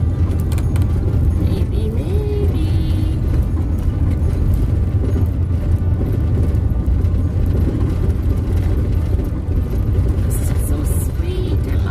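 Van driving along a rough dirt farm track, heard from inside the cab: a steady low rumble of engine and tyres on the ruts.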